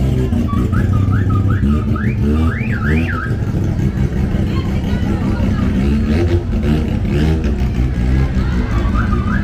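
A car alarm sounding a series of short rising electronic whoops, which stops after about three seconds and starts again near the end. Under it, car engines rumble and rev.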